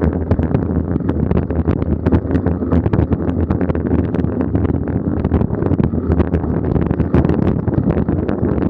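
Mountain bike riding fast over a rough dirt forest trail: a steady rumble of wind buffeting the camera's microphone, with frequent clicks and rattles as the bike jolts over the ground.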